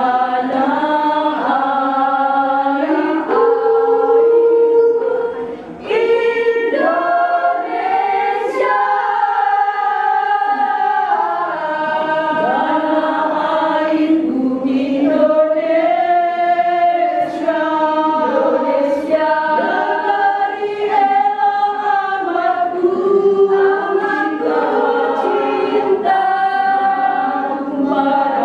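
Women's choir singing in harmony, one sustained song with a brief breath between phrases just before six seconds in.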